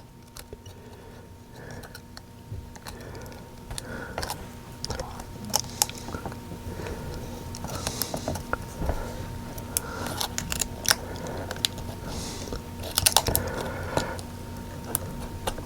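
Small plastic and electronic parts of a car touch-screen assembly being handled and fitted, making scattered light clicks and rustling, with a denser run of clicks about thirteen seconds in, over a faint steady hum.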